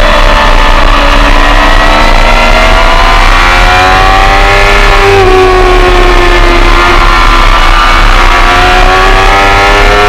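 Race motorcycle engine running hard at high revs, heard from on board with the bike at speed. The pitch rises and falls slowly with a brief dip about five seconds in.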